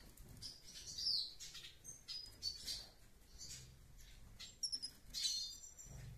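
Caged red siskins chirping: short, high chirps and whistled notes at irregular intervals.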